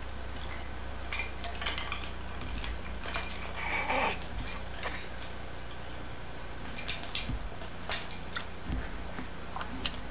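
Steady low hum of a home-video camcorder's sound track, with faint, scattered light scrapes and clicks.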